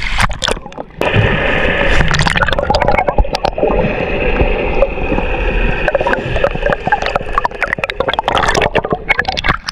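Water gurgling and rushing heard with the microphone submerged, muffled, with many small clicks and knocks. It starts about a second in and drops away just before the end, as the microphone comes back out of the water.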